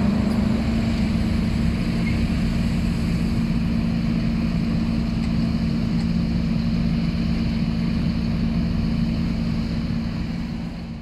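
Siemens Desiro diesel multiple unit's engines running as the train pulls slowly away from the halt: a steady drone with a low rumble, fading out near the end.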